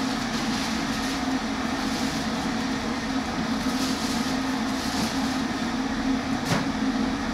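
Electric kettle heating water: a loud, steady rushing noise with a low hum, and a single sharp click about six and a half seconds in.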